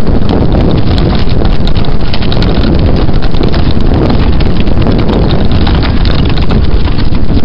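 A pair of North-Swedish draught horses pulling a carriage on an asphalt lane: a steady stream of hoofbeats and harness and wheel noise over a heavy rumble, with wind buffeting the microphone.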